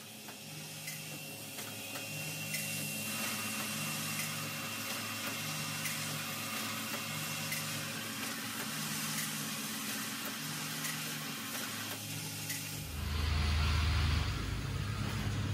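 Running automatic assembly-line machinery: a low hum that pulses on and off about every two seconds, with scattered light mechanical clicks. About 13 seconds in, a louder low rumble takes over.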